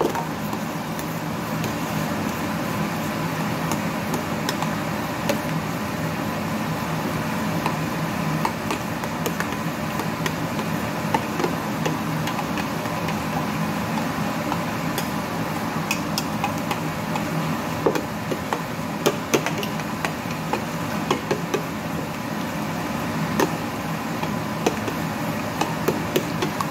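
A steady mechanical hum and hiss with a faint steady tone, under scattered light clinks and taps of a utensil against a stainless steel bowl.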